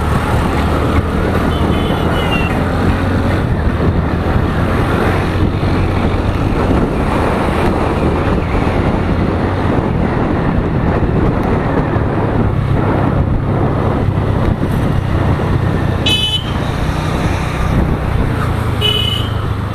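A scooter being ridden through traffic: a steady engine and road rumble, with a horn tooting briefly about sixteen seconds in and again near the end.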